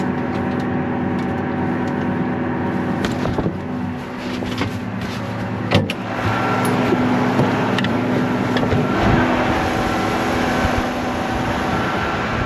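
Farm tractor engine running steadily under load while pulling a stuck loader out of a snowy ditch, with a sharp clank about six seconds in.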